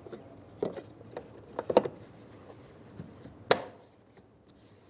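Plastic trim piece behind a car's interior door handle being pressed into place: a series of sharp clicks and knocks, about six in all, the loudest two at roughly a third of the way in and just past halfway.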